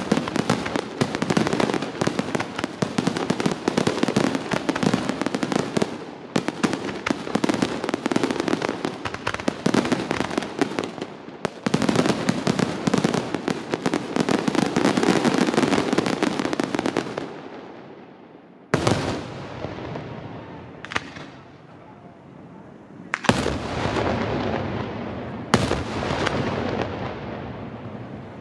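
Aerial fireworks: a dense barrage of rapid bangs and crackling that dies away about two-thirds of the way through, followed by four single heavy bangs a couple of seconds apart, each trailing off in an echo.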